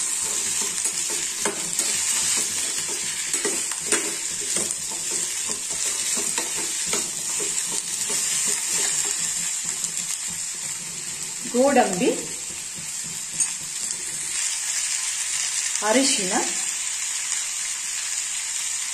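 Onions, tomatoes, green chillies, ginger and garlic sizzling in hot oil in a stainless steel pot. Over the first several seconds a steel spoon scrapes and knocks against the pot as the mixture is stirred.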